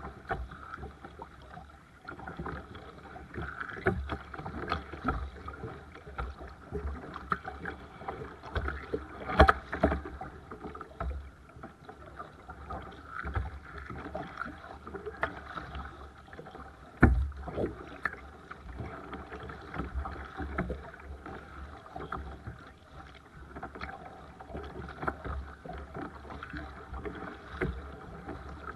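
Paddle strokes splashing and water lapping against the hull of a Seabird Discovery sea kayak as it is paddled, with irregular small knocks throughout. Two sharp, louder knocks come about nine and seventeen seconds in.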